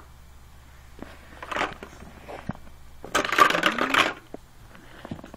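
Large plastic building blocks clattering and clicking as they are handled and pressed together: a short clatter about one and a half seconds in, a few single clicks, then a longer, louder rattle about three seconds in.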